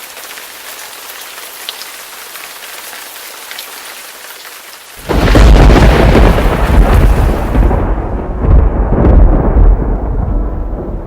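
Steady rain, then about five seconds in a loud crack of thunder breaks into a long deep rumble that slowly dies away.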